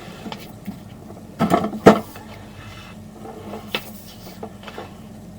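A few irregular clicks and knocks over a low steady hum, with a short cluster of clatter ending in one sharp, loud knock about two seconds in.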